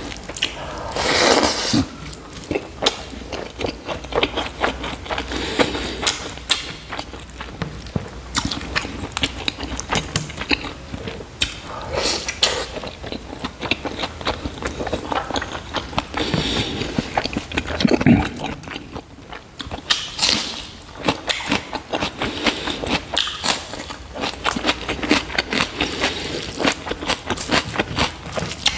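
Close-miked eating: a person chewing pork and rice with many rapid wet smacks and clicks, along with the squish of rice being mixed into curry gravy by hand.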